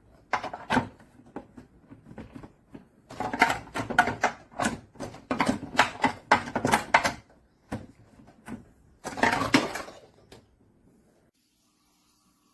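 Irregular clicking and knocking of hard objects being handled, in dense clusters, stopping about eleven seconds in.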